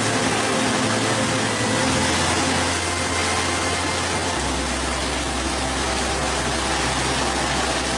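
Heavy rain pouring down, a steady dense hiss of rain falling on pavement and splashing into standing water.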